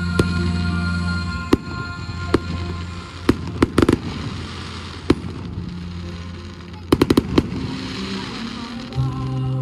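Fireworks bursting in the sky: single sharp bangs every second or so, then a rapid run of about five bangs around seven seconds in. Display music fades out early and a new piece starts near the end.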